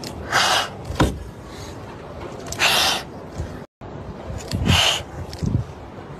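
Frightened kittens hissing defensively: three short hisses about two seconds apart, with a sharp click about a second in.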